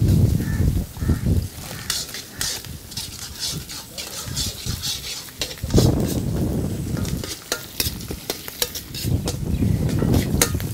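Tempering spices and dals sizzling in hot oil in an iron kadai while a steel ladle stirs them, scraping and clicking against the pan. This is the tadka stage of a South Indian variety rice, with curry leaves, green and dried red chillies just added.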